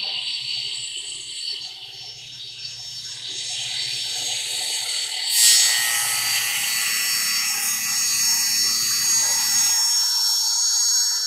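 Spindle of a CNC router spinning a small circular saw blade on an angle aggregate head: a steady high-pitched whine. The level jumps sharply about five and a half seconds in and stays louder afterwards.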